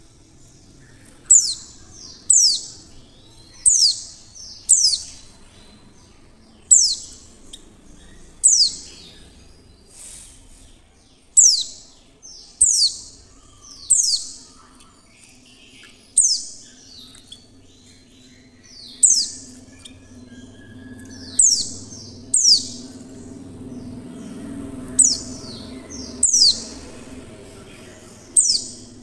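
Female white-eye (pleci) giving short, thin, high-pitched calls, each sweeping steeply downward, repeated every one to three seconds at an uneven pace. These are the female calls used to prompt male white-eyes to open their beaks and sing.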